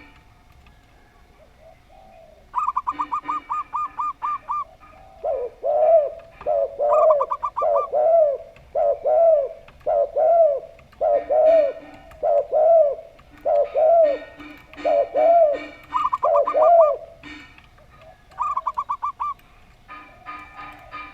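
Zebra dove and spotted dove cooing together. Quick runs of higher, rattling coo notes alternate with a steady series of lower, arching coos about every second, from about two seconds in to about seventeen seconds, with a few more quick runs near the end.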